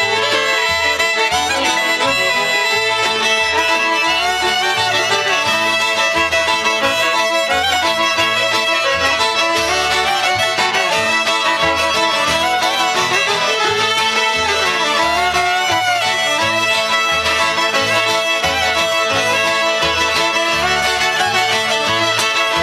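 Cajun music played on fiddles by a jam group, with a steady low beat pulsing underneath the melody.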